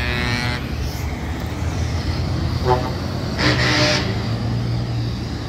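Trucks driving past with a steady low engine drone, and horn sounds: a short toot a little under three seconds in and a louder, longer blast about half a second later.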